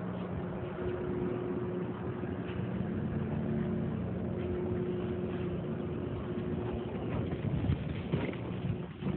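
Steady low hum of an engine or motor running at an even pitch, with some rustling and knocks near the end.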